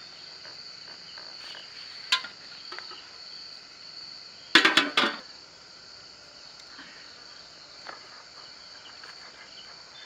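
A steady, high-pitched chorus of crickets. A sharp knock comes about two seconds in, and a louder quick run of clattering knocks about four and a half seconds in.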